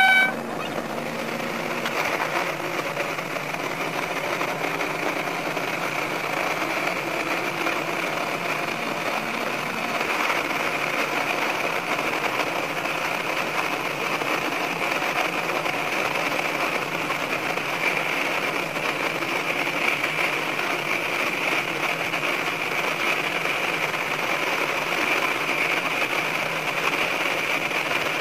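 A brief horn blast from a Sanriku Railway 36-form diesel railcar at the start, then the railcar's engine and wheels running steadily through a tunnel. The audio is sped up five times, so the running noise comes through as a fast, even din.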